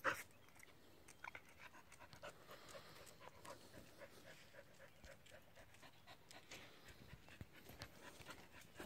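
A dog panting faintly. There is a brief knock at the very start.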